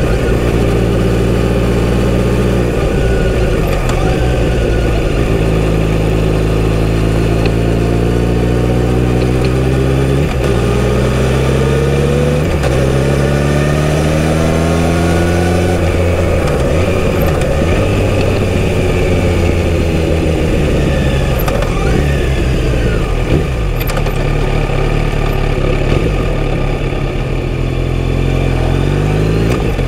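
Kawasaki Z900RS inline-four through its full-system exhaust, heard from the saddle while riding. In the first half it pulls up through the gears, its note climbing and dropping sharply at each gear change. Then it rolls off and slows to a low, steady note.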